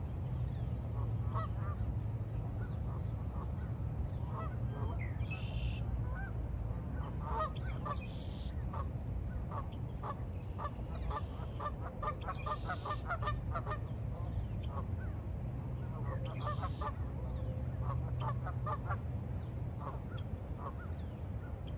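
A flock of geese honking, many short calls overlapping, thickest in the middle, over a steady low rumble, with a few higher bird calls.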